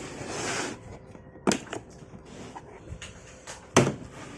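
Handling noise from unpacking a tool kit: a rustle, then two sharp knocks, the second about four seconds in and the louder.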